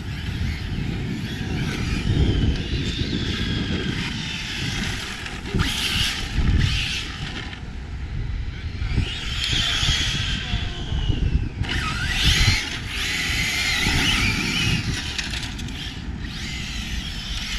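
Arrma Felony 6S RC cars' brushless electric motors whining, the pitch rising and falling again and again as the cars accelerate and slow, over a loud, uneven low rumble.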